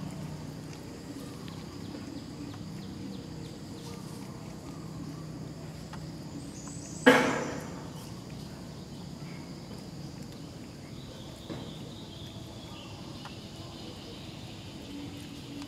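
Steady outdoor ambience with a faint, even insect drone and a low hum. About seven seconds in there is one sudden loud, short sound that fades within half a second.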